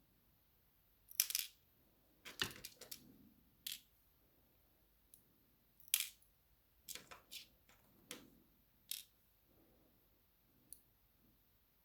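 Small metal lock pins clicking and rattling as they drop onto a hard surface while a dimple lock is taken apart: irregular light clicks, some in quick clusters.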